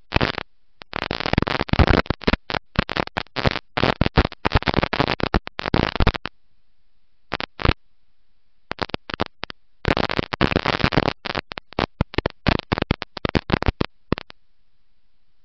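Dirt-track race car heard through an overloaded in-car camera microphone: harsh crackling noise in rapid irregular bursts that keeps cutting out. There are short gaps of silence about six and eight seconds in, and the sound stops about fourteen seconds in.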